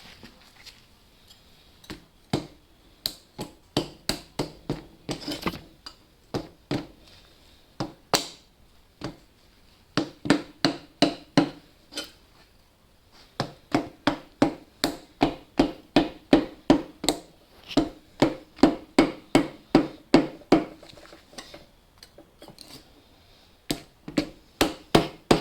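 Hammer tapping repeatedly on a blade, about three blows a second in runs with short pauses, driving it through a stuck, caked-on gasket joint on a Holden 253 V8 engine so the part can be lifted off.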